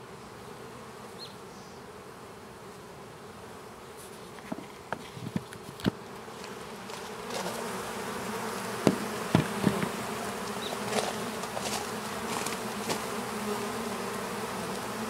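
Swarm of honeybees buzzing as they fly around wet rocks to drink, a steady hum that grows louder about halfway through as the bees come close. Several sharp knocks sound in the middle.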